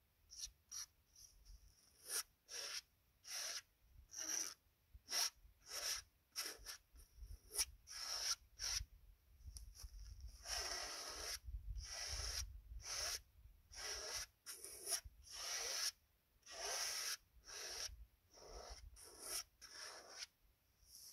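Oil paint being stroked across a large stretched canvas: a quick run of short scraping strokes, with a few longer sweeps about halfway through and again near the end.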